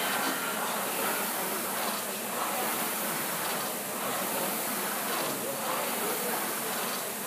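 Air-resistance rowing machine's flywheel fan whooshing steadily under hard rowing, the rush swelling with each stroke about every one and a half to two seconds.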